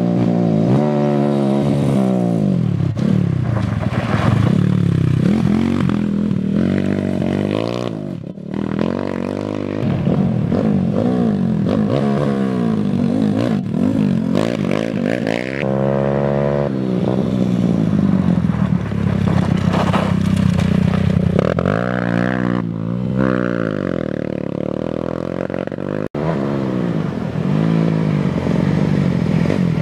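Off-road motorcycle engines revving up and down as the bikes ride past, the pitch rising and falling again and again with throttle and gear changes. The sound breaks off abruptly twice and picks up on another bike.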